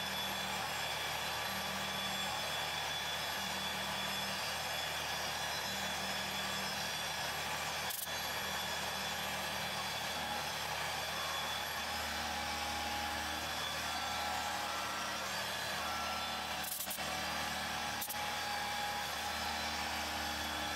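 MAHO MH400E CNC milling machine cutting 10 mm aluminium plate with an end mill under flood coolant: a steady run of spindle and cutting noise, with a few sharp clicks about eight seconds in and twice near the end.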